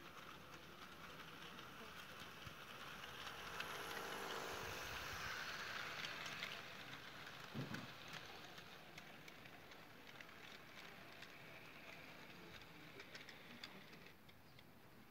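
00 gauge model steam locomotive and goods wagons running past on sectional track: the motor's hum and the rattle and clicking of the wheels grow louder as the locomotive passes, about four to six seconds in, then thin to light ticking as the wagons go by. There is one short knock a little later.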